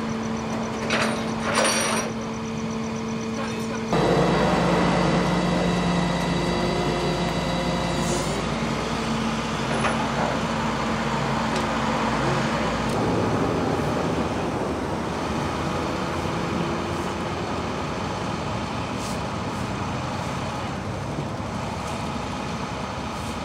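A tow truck's engine running with a steady hum. About four seconds in it gets louder and deeper, then slowly eases off, with voices in the background.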